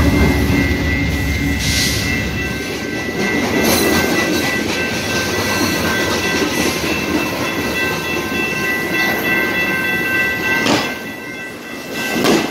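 Burlington Northern freight train passing close by: a heavy low rumble as the locomotive goes past, then the cars rolling by with a steady clatter, under steady high ringing tones. Two sharp bangs near the end.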